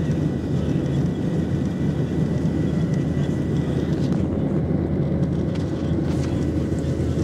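Boeing 737-800 cabin noise: the steady rumble of the CFM56 jet engines and the air around the fuselage, with a faint steady whine over it.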